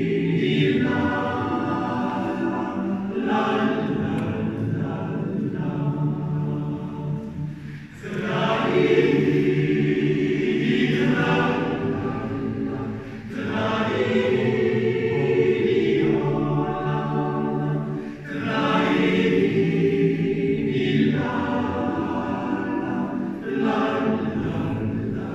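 Men's choir singing a cappella: many male voices in harmony, in long sustained phrases that break off briefly twice for a breath.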